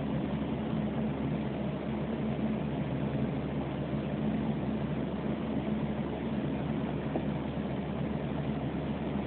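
Steady rain falling, with a low steady hum underneath.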